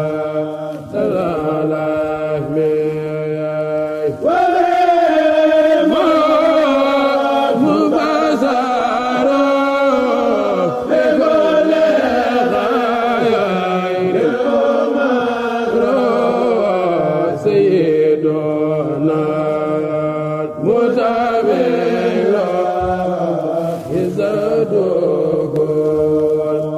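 A Mouride kourel chanting a khassida (Sufi devotional poem) without instruments: a solo lead voice sings long, wavering, ornamented lines that glide between notes.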